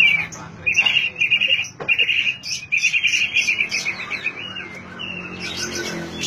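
Oriental magpie-robin (kacer) singing: a string of rapid, buzzy trilled phrases, each about half a second long, broken by short higher notes. The song fades about five seconds in.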